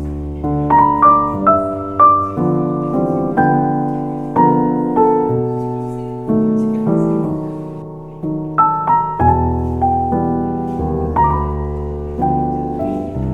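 Solo piano background music playing gentle, slowly changing chords with single melody notes struck over them.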